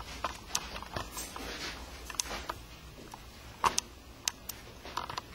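Handling noise from a handheld camcorder being carried and turned: scattered light clicks and soft rustling, with a few sharper clicks a little past the middle.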